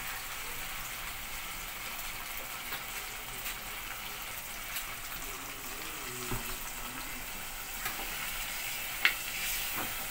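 Chicken and taro curry sizzling in a hot steel pot while water goes in and it is stirred, with light clicks of the spoon and one sharp clink of the spoon against the pot about nine seconds in.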